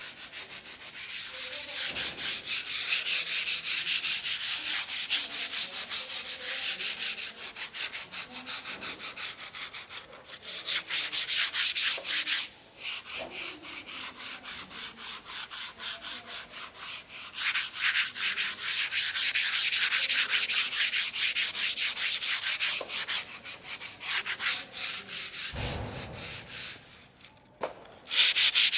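Sandpaper rubbed back and forth over a surface in quick, even strokes, several a second, in spells of harder and lighter sanding with two brief pauses. A short low bump comes near the end.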